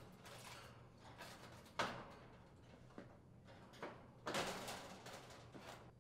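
Quiet knocks and scraping as the top cover with its fan grille is shifted into alignment on an air conditioner condensing unit's cabinet. A sharper knock comes about two seconds in, and a longer scrape comes about four and a half seconds in.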